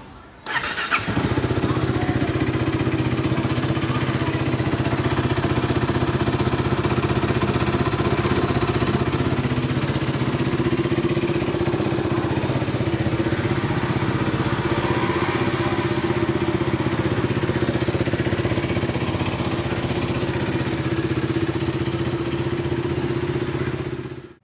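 A KTM RC motorcycle's single-cylinder engine is started on the electric starter. It catches about half a second in, then idles steadily.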